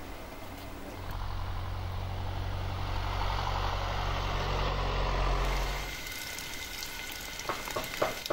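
A large motor vehicle's engine runs with a steady low rumble, growing louder and then cutting off abruptly about six seconds in. After that comes the quieter hiss of a lidded pan frying over a wood fire, with a few sharp pops near the end.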